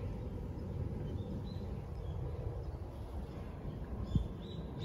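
Outdoor garden ambience: a steady low rumble with faint, short bird chirps, a couple about a second and a half in and more near the end. A brief low bump about four seconds in.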